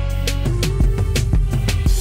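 Background music with a drum beat and a heavy bass line.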